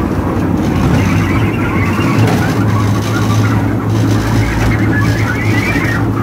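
Small theme-park ride train running along its track: a steady low hum from the locomotive's motor over a broad rumble from the moving train.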